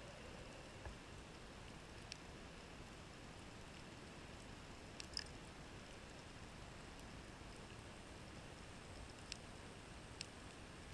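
Faint underwater reef ambience heard through a camera housing: a steady soft hiss with a few scattered short, sharp clicks, the sharpest about five seconds in.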